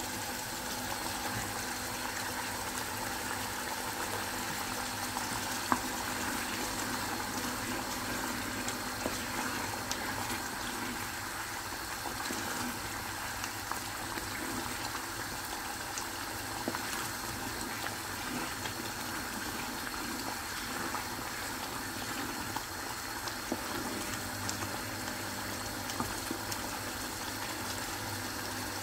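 Thick sauce boiling in a saucepan, bubbling steadily with many small pops as the bubbles burst, and one sharper click about six seconds in.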